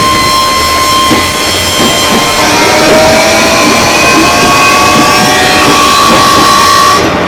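JR 205 series electric commuter train running, with an unusual whine of several tones from its traction equipment that rise slowly in pitch, as when the train gathers speed, over a steady rail rumble. The whine and hiss cut off suddenly near the end.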